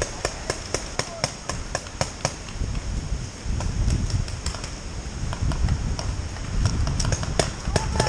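Paintball markers firing in rapid, irregular volleys: sharp pops several a second, fewer in the middle and coming thick again near the end.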